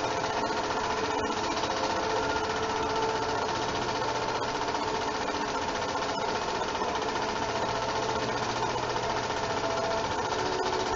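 8mm film projector running: a steady, rapid mechanical clatter from the film-advance mechanism with a continuous hum underneath.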